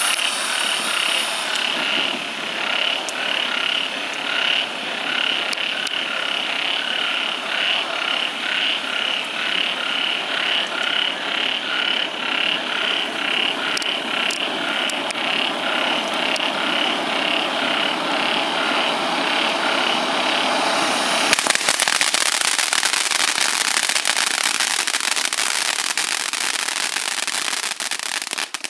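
Miracle Fireworks Night Owl firework burning: a steady hiss with a pulsing whistle, about two pulses a second. About 21 seconds in it changes to a louder crackling hiss, which cuts off suddenly near the end.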